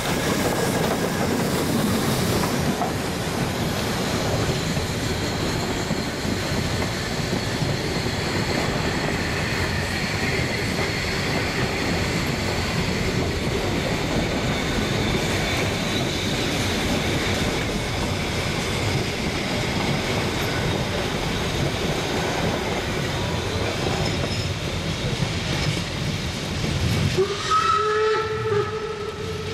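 Harz narrow-gauge steam train hauled by a 2-10-2 tank locomotive, 99 7245, pulling out and running past: a steady rumble and the clatter of the coaches' wheels on the rails. Near the end, a louder wavering tone of several pitches sounds over it.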